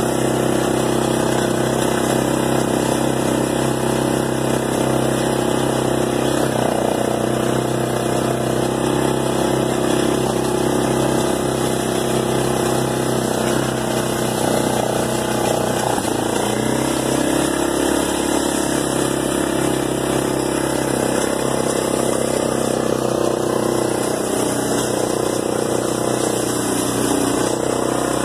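Arctic Cat 375 4x4 automatic ATV engine running steadily while riding, with a brief dip and a change in pitch about halfway through.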